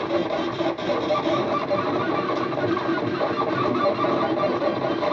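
Stepper motors of a home-built RepStrap 3D printer driving the print head on a fast print at about 200 mm/s, giving a steady whine whose pitches keep shifting as the moves change.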